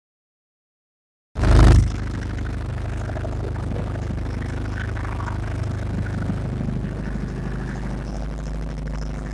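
Silent for about the first second, then a brief loud thump, followed by a motorboat's engine running steadily with water rushing along the hull.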